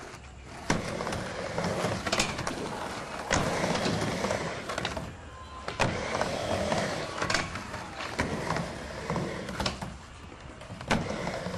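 Skateboard wheels rolling over concrete and ramps, broken by several sharp clacks of the board and trucks hitting the coping and the ground.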